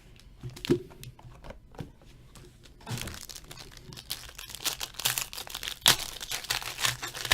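Foil trading-card pack wrappers crinkling and tearing as hockey card packs are opened by hand. A few light taps come first, then steady crinkling from about three seconds in.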